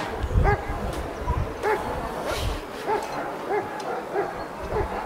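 German Shepherd barking steadily at a motionless helper, about two sharp barks a second: the hold-and-bark of protection work, where the dog guards the decoy without biting.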